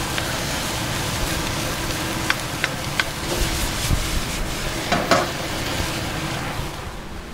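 Fried rice with steak and broccoli sizzling in a hot wok, stirred and tossed with a wooden spoon. A few light clicks of the spoon against the pan come about two to three seconds in and again around five seconds.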